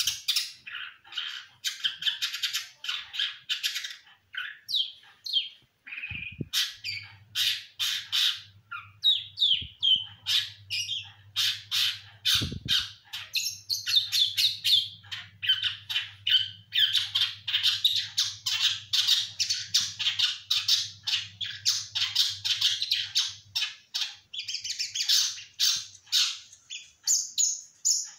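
A songbird chattering in a fast, unbroken run of chirps and scratchy squawks.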